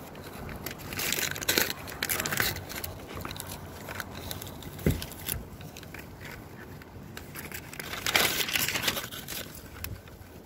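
Plastic wrapping crinkling and tearing as a new air conditioner filter is pulled out of its packaging, in rustling bursts, with a dull thump about halfway through.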